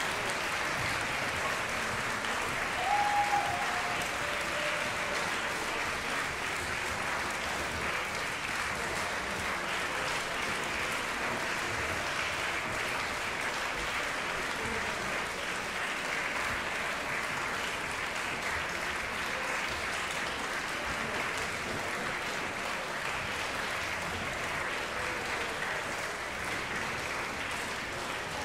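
Concert-hall audience applauding steadily, with one short call from the crowd about three seconds in; the clapping eases slightly near the end.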